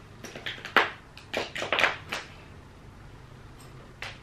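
Small plastic makeup items, such as mascara tubes, clicking and knocking as they are handled and sorted, about eight quick taps in the first two seconds, the loudest a little under a second in.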